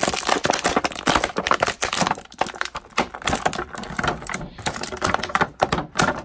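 Clear plastic bag crinkling and crackling in a dense run of sharp rustles as an action figure is pulled out of it by hand.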